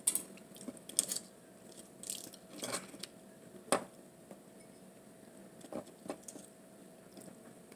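Quiet eating sounds: a handful of light clicks and taps from utensils and food being handled, over a faint steady hum.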